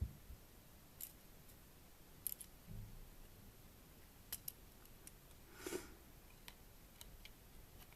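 Faint, scattered small clicks and taps of handling the phone's parts as its circuit board is worked loose, with a slightly fuller click a little after halfway.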